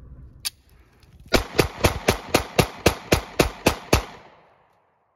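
Taurus GX4 9mm pistol fired rapidly, about eleven shots at roughly four a second, each ringing out and the last echo fading away. A single sharp click comes shortly before the string.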